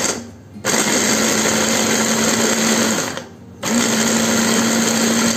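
Electric food chopper motor running in pulses as it coarsely grinds roasted onion, tomato, garlic, green chilli and coriander into salsa. It stops just after the start, runs for about two and a half seconds, pauses briefly, then runs again.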